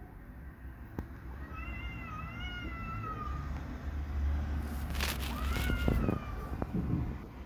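Cats fighting: two long, wavering yowls, the first about a second and a half in and lasting about two seconds, the second shorter near the six-second mark, with a brief burst of noise between them.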